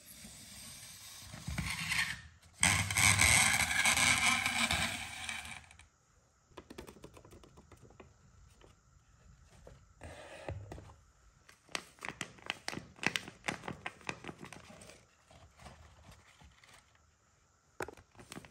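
Paper being handled: loud scraping and rustling for about the first six seconds, then softer crinkling with scattered sharp paper taps and clicks.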